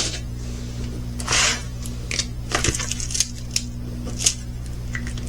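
Small plastic bags of diamond painting drills being handled: scattered light clicks and crinkles, with a short rustle about a second in, over a steady low hum.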